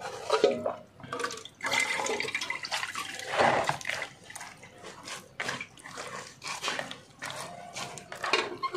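Wet squishing and trickling as grated coconut is squeezed by hand, coconut milk dripping and splashing through a metal sieve into the pot below, in uneven bursts.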